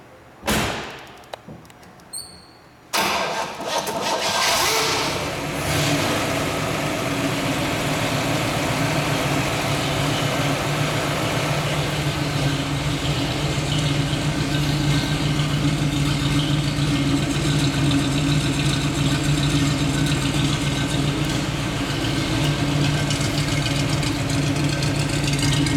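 A 1961 Corvette's dual-quad 283 V8 starting. After a thump and a few small clicks, it catches suddenly about three seconds in, revs up briefly, then settles into a steady idle.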